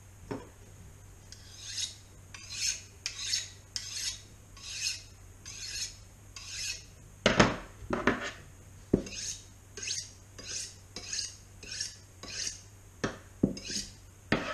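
Kitchen knife being sharpened on a honing steel: a long run of short, high scraping strokes, about one or two a second, with a few louder metal clacks along the way.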